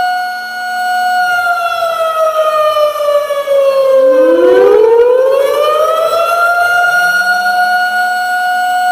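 Tornado warning siren sound effect: a steady wail that slides down in pitch from about a second in, while a second wail rises from low and climbs back to the same steady pitch by about seven seconds in.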